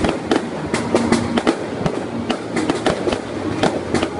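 Fireworks display going off: an irregular series of sharp bangs and cracks, about three or four a second, over a continuous background of further bursts.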